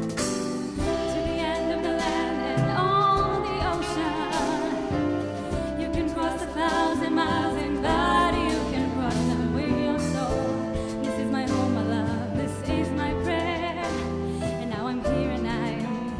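Live jazz-fusion band playing: women's voices singing with vibrato over piano, electric bass, drums and alto saxophone.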